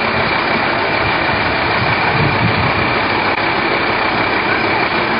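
Lorry engine running steadily at low speed under a dense hiss, with a faint steady high whine.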